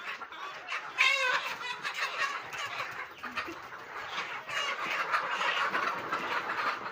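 Many pre-layer chickens clucking together, with one bird giving a loud squawk about a second in.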